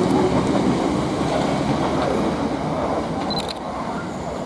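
Train running along the track: a steady rail rumble that slowly fades.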